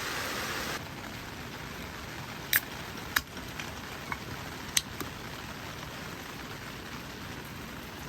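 Steady rain falling, with a handful of sharp ticks scattered through it. A brighter hiss stops abruptly under a second in.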